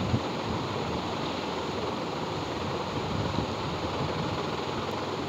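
Colored pencil scratching steadily across paper as an area of a drawing is shaded in, a continuous scratchy hiss.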